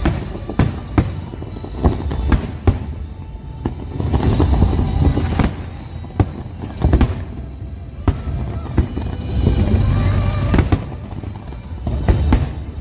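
Aerial fireworks shells bursting: a dozen or so sharp bangs at irregular intervals over a continuous low rumble.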